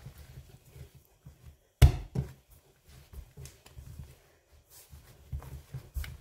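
Soft yeast dough being kneaded by hand on a countertop as butter is worked into it: dull thuds as the dough is pressed and pushed down, with one sharp thump about two seconds in, quickly followed by another, and a few softer ones near the end.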